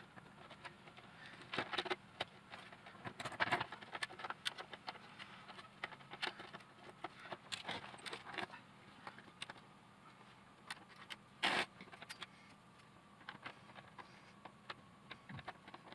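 Irregular clicks, taps and rattles of small parts being handled while a robot vacuum is put back together, with one louder clack near the middle.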